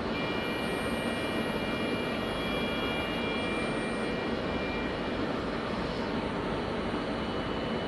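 Koleje Mazowieckie electric multiple unit standing at the platform, its onboard machinery giving a steady hum. A thin high whine rides over it for the first half and then fades.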